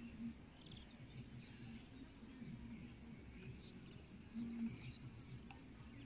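Quiet rural outdoor ambience: a faint low rumble with a brief low hum about four and a half seconds in, and a few faint high chirps, likely from distant birds.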